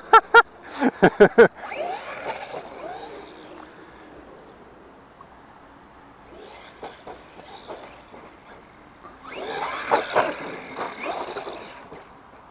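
Brushless RC monster truck driving on artificial turf: two spells of electric motor whine rising and falling in pitch, with tyre noise. The second spell, near the end, is the louder. A few short, sharp chirps come in the first second and a half.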